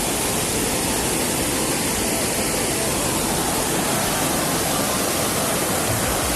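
Steady, loud rush of a monsoon-swollen waterfall in full flow.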